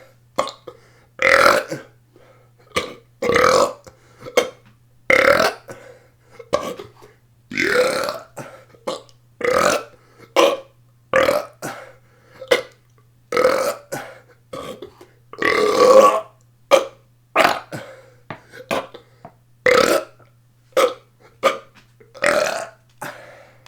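A person deliberately belching over and over, a long string of separate burps at about one a second, some short and some drawn out, the longest and loudest about sixteen seconds in.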